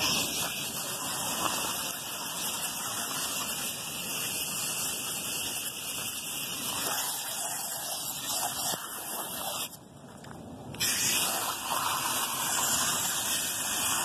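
Water from a hose spray nozzle hissing steadily against the fins of a rooftop unit's evaporator coil, rinsing it. The spray breaks off for about a second some ten seconds in, then resumes.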